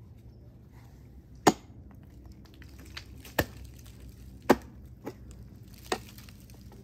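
Ice axe picks and crampon front points striking thin ice: five sharp, separate strikes, the last two lighter.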